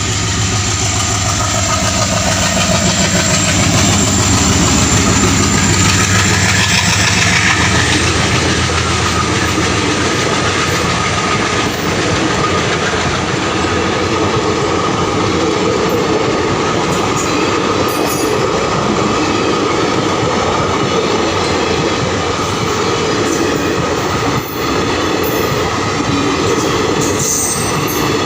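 Passenger express train running past at close range: a steady low hum in the first eight seconds or so, then a long, even rush of coach wheels running on the rails.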